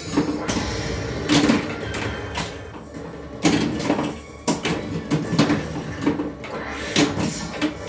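The Shadow pinball machine in play: about a dozen sharp, irregular clacks and knocks of the ball and the playfield's solenoid-driven mechanisms, over a steady electronic tone.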